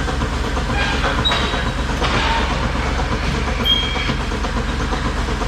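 Dairy milking equipment running steadily during milking: a constant low machine hum with a steady noisy wash over it, typical of the vacuum pump and milking units.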